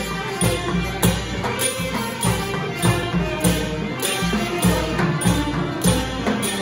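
Thai traditional brass band (trae wong) playing a tune: clarinet and saxophone carry the melody over marching snare drums and a bass drum keeping a steady beat.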